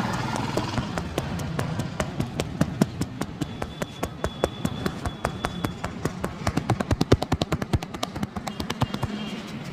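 A barber's hands slapping and tapping on a customer's head and body in a percussive massage: irregular sharp slaps at first, speeding up to a fast run of strikes about two-thirds through, then slowing.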